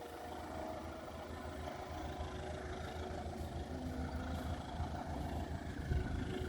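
Heavy engine running with a steady low rumble and a few faint steady tones, getting louder near the end.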